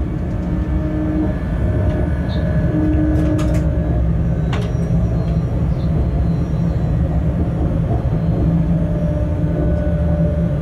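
Freight train locomotive cab running along the line: a steady low rumble of wheels on rail with a steady hum from the locomotive's equipment and a couple of faint clicks.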